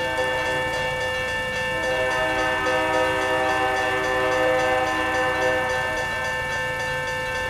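Diesel locomotive air horn blowing for the grade crossing: a short blast near the start, then a long one from about two seconds in until about five and a half seconds. Under it the crossing's warning bell dings steadily and the locomotives rumble low.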